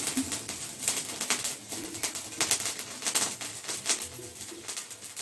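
Potassium permanganate and glycerin fire burning on a steel plate, crackling with irregular sharp pops as the reaction continues.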